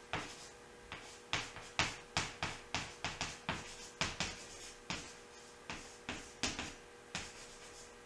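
Chalk writing on a chalkboard: a quick, irregular run of sharp taps and scratchy scrapes as the letters are stroked out, with short pauses between strokes and a quieter stretch near the end.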